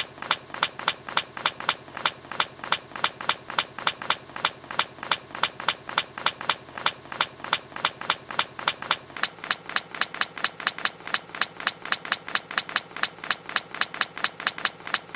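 A hedgehog's small sneeze repeated over and over in rapid succession, about four sneezes a second, each one short and sharp.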